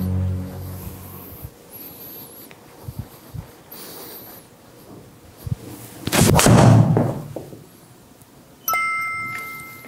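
A 3-wood swung off a hitting mat: a sharp strike of the club on the ball about six seconds in, followed by a loud rush of noise as the shot goes into the simulator screen. Near the end an electronic chime sounds with two steady tones and dies away. Background music fades out at the start.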